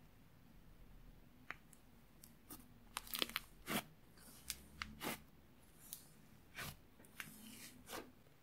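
Thick slime being pressed and folded by hand, giving off an irregular run of crackling pops and clicks as air pockets burst. The pops come thickest about three seconds in.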